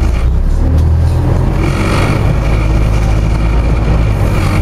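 Scania OmniCity double-decker bus's diesel engine running as the bus moves, heard from inside the passenger saloon as a loud, steady low drone mixed with road and body noise.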